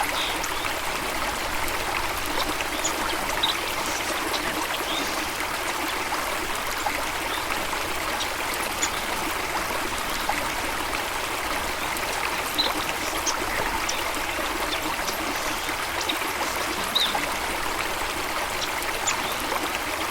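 Stream water flowing steadily, a constant rushing and trickling, with a few brief high chirps over it.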